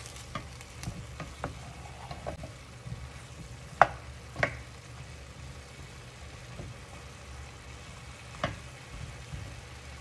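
A black spoon stirring cauliflower and chicken in a stainless steel pan over a light sizzle, scraping and clacking against the pan, with a few sharper knocks, the loudest about four seconds in.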